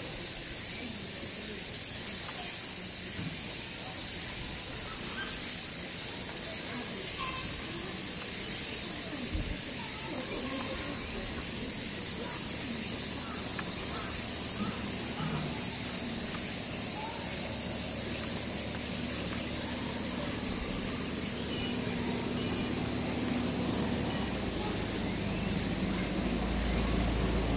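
Steady high-pitched drone of insects singing, with faint voices murmuring underneath.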